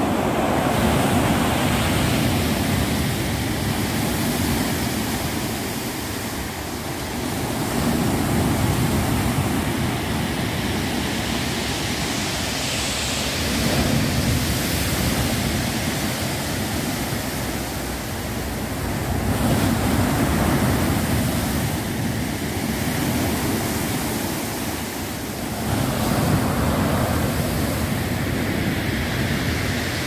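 Storm surf on the Black Sea breaking and washing up onto the seafront: a continuous rushing of water that swells every five or six seconds as each wave comes in.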